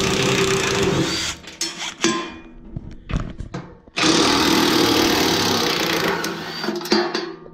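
Power drill running in two long bursts with short stop-start pulls between them, backing out the rear fender bolts on a garden tractor.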